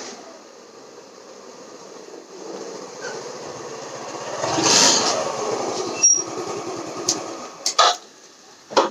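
Motor scooter riding up and passing close by, its small engine growing louder to a peak about five seconds in, then running on more quietly. A few sharp clicks and knocks come in the last few seconds.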